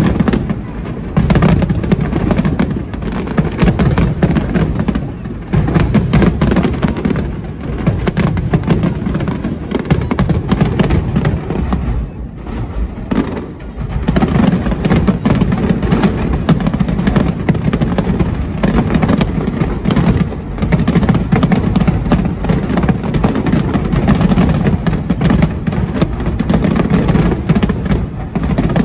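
Aerial firework shells bursting in a dense barrage, loud, rapid overlapping booms and crackles, with a short lull about twelve seconds in before it builds back up.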